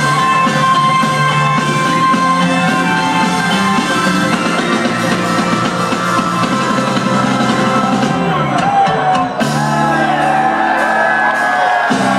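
Live instrumental electronic rock band (guitar, keyboards, drums) playing loud through a concert PA, heard from within the crowd. Fans whoop and shout over the music, most audibly near the end.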